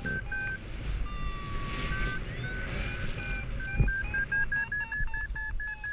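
Paragliding variometer beeping over wind rush on the microphone. A steady lower tone about a second in gives way to short beeps that come quicker and slightly higher in pitch, the vario's signal of climbing in lift.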